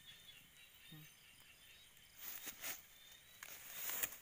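Grass and weeds rustling as a hand works through them to pull up a staked fishing line, in two bursts in the second half, the later one louder.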